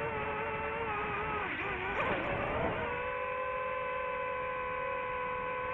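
DJI FPV quadcopter's motors and propellers whining over a steady rush of air. The pitch wavers and dips through the first half as the throttle changes, then holds steady for the rest.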